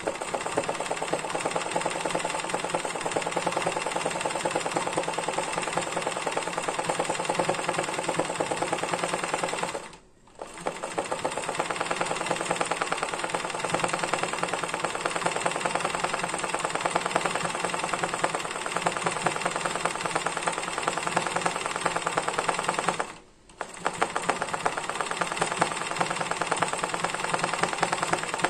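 Janome 813 sewing machine stitching fast and steadily as the hooped fabric is moved by hand for machine embroidery. It stops briefly twice, about ten seconds in and again about twenty-three seconds in, then runs on.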